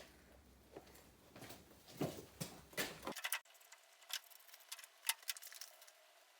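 Faint scattered clicks and light knocks, a few to the second, over a low background that cuts out abruptly about three seconds in.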